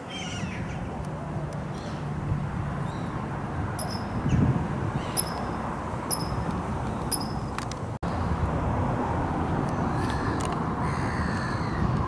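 Outdoor waterside ambience: a steady low background rumble with short, high-pitched bird chirps, about one a second between four and seven seconds in and a few more near the end.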